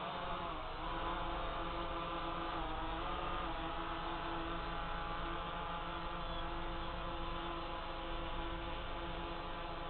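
DJI F550 hexacopter's six electric motors and propellers humming as it lifts off the ground, the pitch shifting in the first few seconds, then holding steady in a hover.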